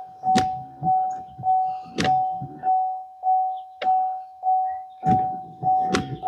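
2016 Chevrolet Equinox's warning chime pulsing steadily, about one and a half to two chimes a second, with sharp knocks every second or two from the wiper arms running across the windshield.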